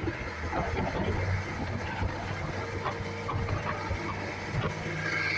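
An outrigger boat's inboard engine running steadily under way, a constant low drone, with waves splashing and rushing along the hull.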